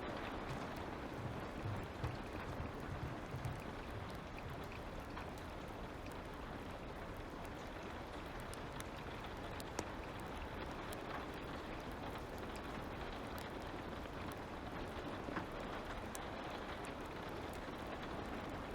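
Steady light rain with the scattered crackle and pop of a fire.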